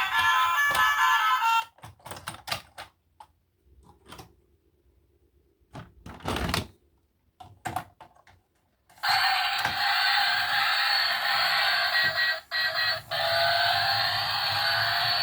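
Background music stops, then a stretch of scattered light clicks and knocks with one short rustling burst in the middle, and the music starts again about nine seconds in.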